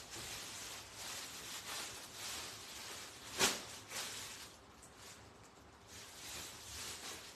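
Soft rustling and handling noise from hands working at a phone stand and garments, with a sharp tap about three and a half seconds in and a lighter one half a second later.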